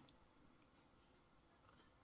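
Near silence: room tone, with one faint tick just after the start.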